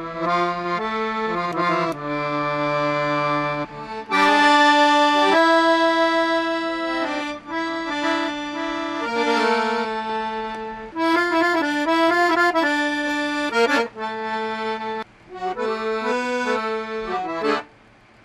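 Piano accordion playing a tune over held chords, in phrases with short breaks between them, the fullest and loudest passages about four and eleven seconds in.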